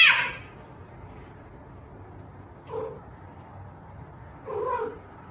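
A domestic cat meowing: one loud meow at the start, then two shorter, quieter meows about three and five seconds in.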